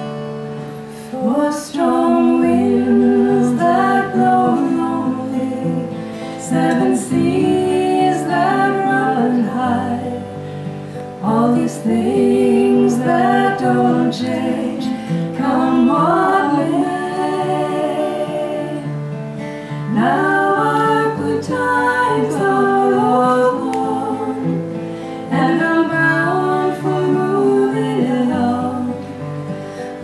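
Two women singing a folk song together, accompanied by two strummed acoustic guitars. The singing starts about a second and a half in, over the guitars' steady chord pattern.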